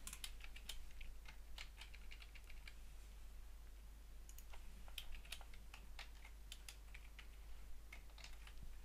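Computer keyboard typing: quiet, irregular keystrokes in short runs with brief pauses between them.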